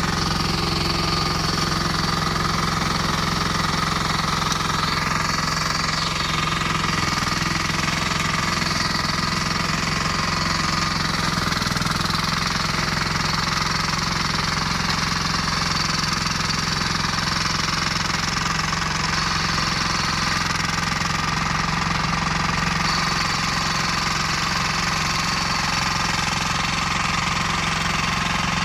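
The 18 hp diesel engine of a flail mower running steadily at an even speed.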